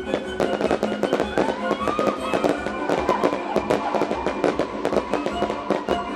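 Fireworks going off in a rapid, dense string of bangs and crackles, over music playing throughout.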